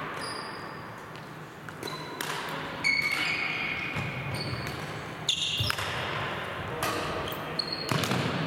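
Badminton rackets striking a shuttlecock in rallies, a string of sharp hits about a second apart, with short high squeaks of sports shoes on a wooden hall floor between them.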